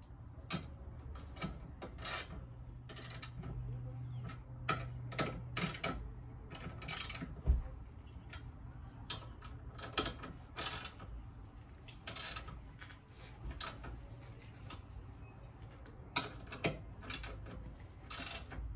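Hand ratchet clicking in short, irregular runs as the side-step's mounting bolts are tightened from underneath, with one dull knock about midway.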